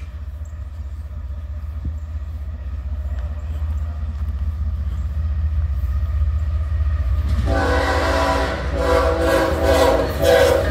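BNSF ES44AC diesel locomotive approaching with a low rumble that grows louder. About seven seconds in, its air horn starts sounding a chord in a series of blasts with short breaks, the signal for a grade crossing.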